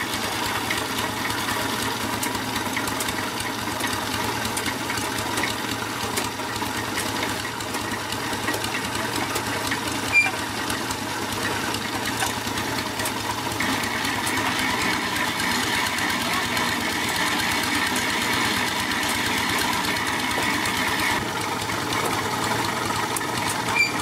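Small engine powering the well's rope hoist, running steadily with a fast, even beat. A single sharp click sounds about ten seconds in.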